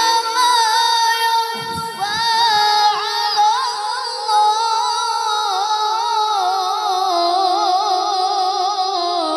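A boy's voice reciting the Quran in melodic tilawah style through a microphone and PA sound system, drawing out long ornamented notes with a wide vibrato. The recitation echoes heavily.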